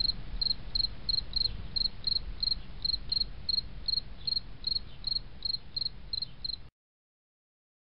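Cricket chirping at a steady rate of about three chirps a second over a low background hum, cutting off abruptly near the end.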